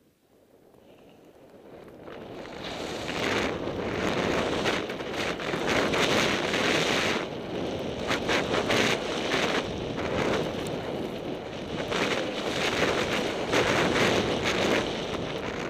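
Wind rushing over the camera microphone as the rider picks up speed down a powder run, building from near silence over the first few seconds. The rush stays loud with the hiss of snow swelling and fading through the turns, and it drops away at the very end.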